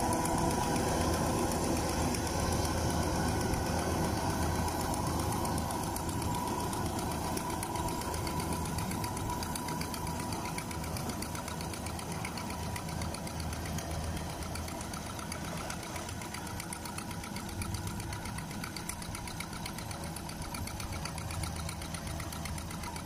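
Kubota DC93 rice combine harvester running while it harvests, its diesel engine and threshing machinery a steady mechanical drone that slowly fades as the machine moves away.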